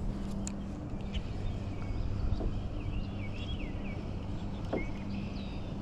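Wind rushing on the microphone under a steady low hum, with a bird chirping a few short calls in the middle and again near the end.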